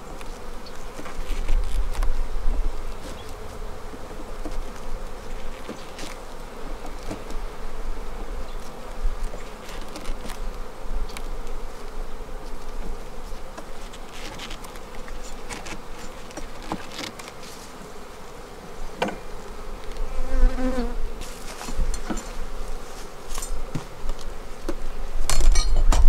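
Honeybees buzzing steadily around an open hive, with scattered clicks, scrapes and knocks of wooden frames being shifted and pushed together with a hive tool. A louder bump comes near the end.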